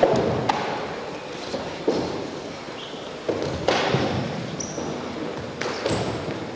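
Several irregular thuds and slaps of punches and kicks landing on bodies and gis, mixed with bare feet stamping on a wooden floor during full-contact kempo sparring, each hit echoing in a large hall.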